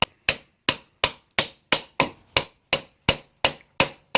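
Hammer blows on the rust-seized sway bar disconnect assembly of a Jeep Wrangler Rubicon, a steady run of sharp metallic strikes about three a second, driving out the stuck inner part.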